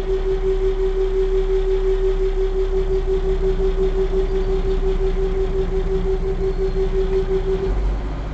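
Small river ferry's engine running steadily, with a constant pulsing whine over a low rumble. Near the end the whine stops and the deeper rumble comes up, as the ferry nears the landing.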